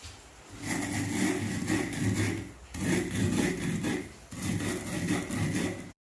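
Pestle grinding roasted rice in a mortar: rough rubbing and scraping in three stretches of about one and a half seconds each, with brief pauses between. It starts a little under a second in.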